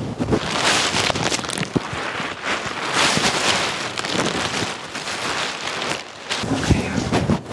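Thin plastic wrapping being pulled off a mattress, rustling and crinkling in long swishes, with a few low thumps near the end.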